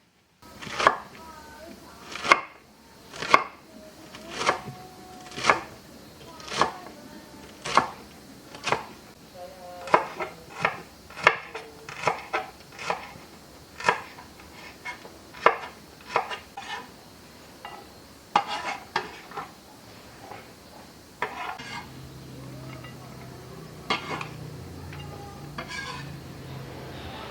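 Knife chopping on a cutting board: sharp single strokes about once a second, quickening to about two a second midway, then slowing and thinning out. A low steady hum comes in near the end.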